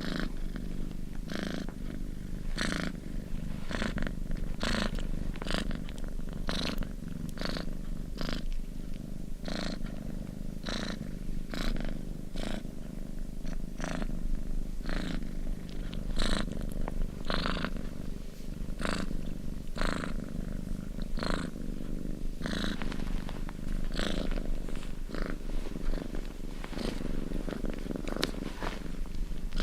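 Domestic cat purring steadily, a continuous low rumble with a short breathy rasp repeating about every two-thirds of a second.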